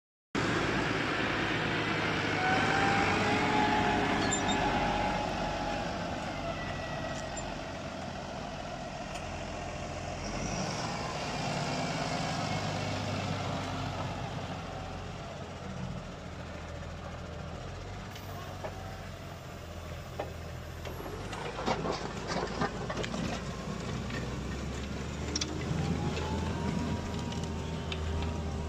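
Deutz-Fahr 6165 TTV tractor's six-cylinder diesel engine running steadily under load while pulling a Lemken Juwel 7 reversible plough, with a faint whine that glides up and down in pitch. Scattered clicks and knocks in the second half.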